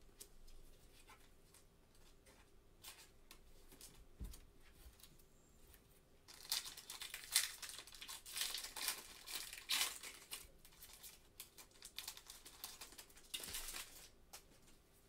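Trading-card pack wrapper being torn open and crinkled by gloved hands, with faint ticks of card handling first; the loud crinkling starts about six and a half seconds in, lasts some three seconds and comes back briefly near the end.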